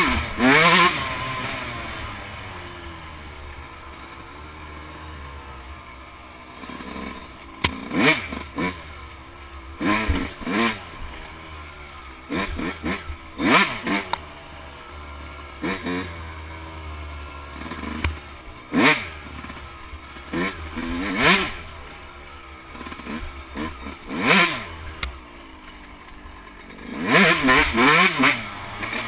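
Yamaha YZ125 two-stroke single-cylinder dirt bike engine being ridden, its pitch rising and falling with the throttle. Sharp loud peaks come every two to three seconds between quieter stretches.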